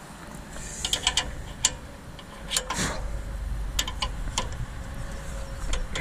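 A run of sharp, irregularly spaced clicks and ticks, about ten in all, some in quick pairs, over a steady low rumble.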